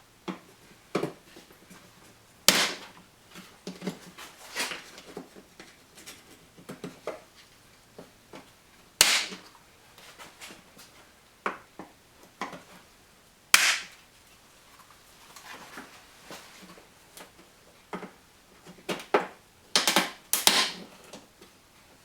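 Plastic push-pin clips snapping loose as they are pried out with a button-popping tool: sharp snaps a few seconds apart, a quick run of them near the end, with lighter clicks and plastic rattles in between.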